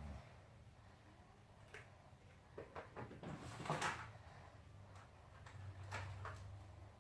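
Faint handling noises: a few light clicks and knocks, with a brief rustle about three and a half seconds in.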